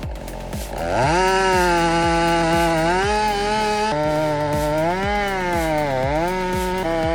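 Chainsaw engine running and being throttled: it revs up about a second in, then its pitch rises and falls as the trigger is worked, dipping low near the end.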